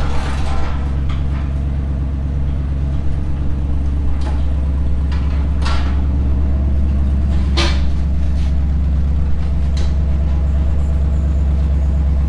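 Tow truck's engine running steadily at idle, a deep even hum. Three short sharp knocks stand out over it, the loudest a little past the middle.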